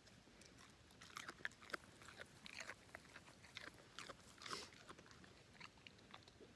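English setter chewing a piece of carrot: a faint run of quick, irregular crunches as her teeth bite through it.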